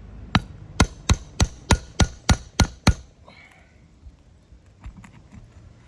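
Hammer blows on a nail puller: nine quick, sharp metal strikes in about two and a half seconds, working out a roofing nail driven too high in the shingle.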